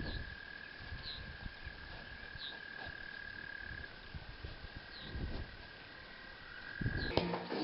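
Outdoor animal calls: a steady, high-pitched drone with occasional short chirps above it. Music starts near the end.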